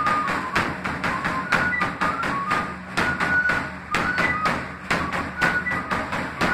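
Traditional drums struck with sticks in a quick, steady beat, with a high, thin melody of short held notes over them, like a cane flute.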